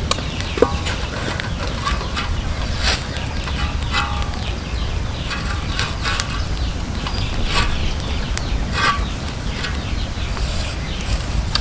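Chicken hearts deep-frying in a wok of hot oil over a wood fire: a steady sizzle broken by many irregular crackles and pops, over a constant low rumble.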